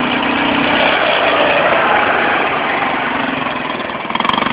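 ATV engine running close by, getting louder and then slowly easing off as it passes.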